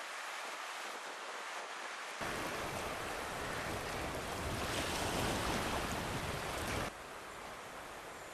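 Small Baltic Sea waves washing over a stony shore, with wind. About two seconds in the sound becomes louder and fuller with a low rumble, and near the end it drops suddenly to a quieter, even outdoor background.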